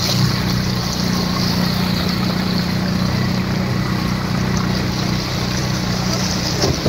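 A motor vehicle's engine running with a steady low hum while it moves through floodwater, over a constant rushing noise.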